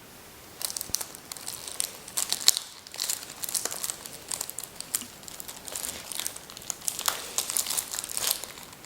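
Crinkly packaging crackling and rustling in irregular bursts as a speed cube is worked loose from it by hand, a long, effortful struggle.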